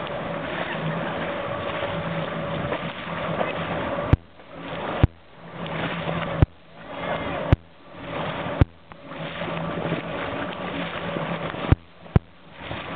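A small boat's motor running steadily over choppy water, with a rush of wind and water. From about four seconds in, a series of sharp knocks breaks in, each one followed by the sound suddenly dropping away and then swelling back.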